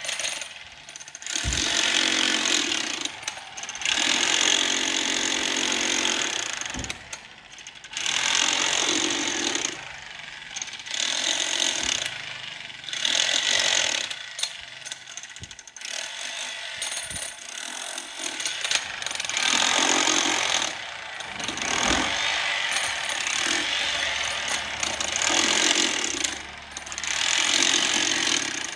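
Construction tools at work: repeated bursts of harsh mechanical noise, each a second or two long, with short pauses between them.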